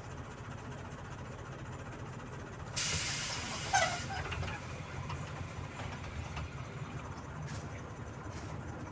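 Volzhanin-5270 city bus idling with a steady low hum. About three seconds in, compressed air hisses out for about a second and ends in a sharp clunk.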